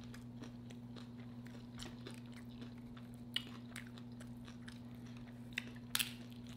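Close-miked chewing and crunching of homemade nacho chips under seafood Alfredo sauce: a run of small crackles with a few sharper crunches, the loudest about six seconds in.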